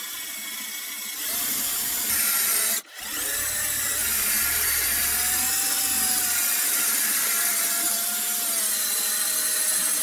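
12-volt Bosch cordless lithium-ion drill running under load, boring into brick, its motor whine wavering in pitch. It stops for a moment just before three seconds in, then starts again.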